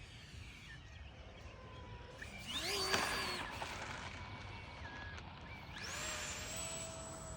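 Electric ducted fans of a Freewing 70mm F-22 Raptor RC jet whining as the throttle is pushed up, rising sharply about two and a half seconds in and falling back. About six seconds in they spool up again and hold a steady high whine.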